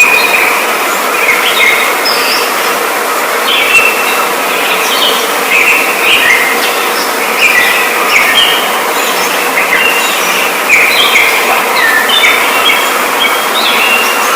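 Many birds chirping and calling over one another in a dense chorus of short, overlapping notes, with a faint steady hum beneath.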